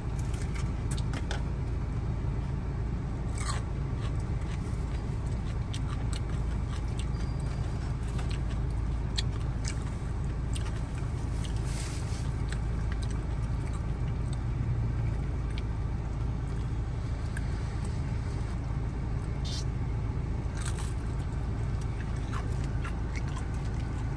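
Steady low rumble of a car idling, heard inside the cabin. Over it come scattered small clicks and crackles of a toy poodle chewing chicken fed by hand.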